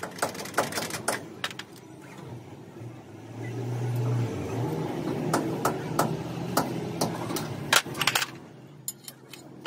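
Metal tools and parts clinking and knocking against a truck wheel hub and against loose bolts. A vehicle engine runs steadily from about three seconds in until shortly before the end.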